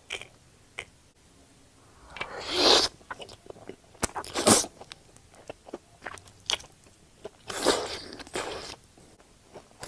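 Close-miked crunchy bites and chewing from someone eating mukbang-style. There are three loud crunches, about two and a half, four and a half and eight seconds in, with small crackles and mouth clicks between them.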